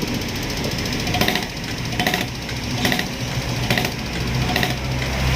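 Common-rail injector test rig running on a rebuilt Komatsu injector: a steady pump hum with a short spray burst from the injector about once a second. The hum grows stronger near the end.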